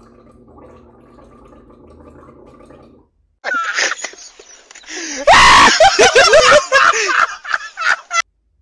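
A man laughing uncontrollably: very loud, gasping, wheezing laughter with the pitch swooping up and down, distorted from clipping. It starts about three and a half seconds in, after a faint steady hum, and cuts off shortly before the end.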